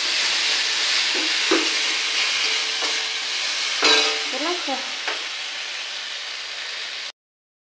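Potatoes and spice paste sizzling in hot oil in a steel kadai while a metal spatula stirs and scrapes against the pan, with a sharp knock about four seconds in. The sound cuts off abruptly near the end.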